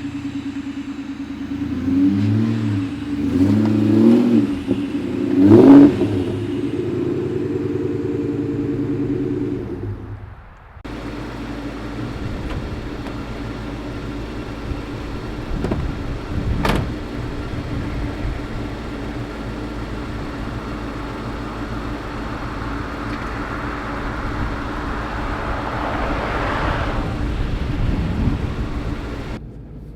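A 2003 SVT Cobra's supercharged 4.6-litre V8 exhaust, idling and blipped through several quick revs in the first six seconds, then after a cut idling steadily, with one sharp click about halfway.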